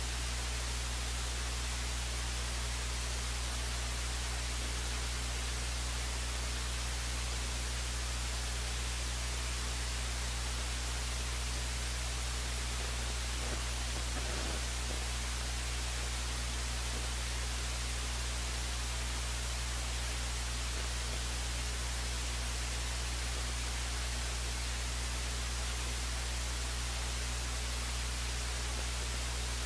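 Steady hiss of static with a low electrical hum underneath, unchanging throughout; no game or crowd sound.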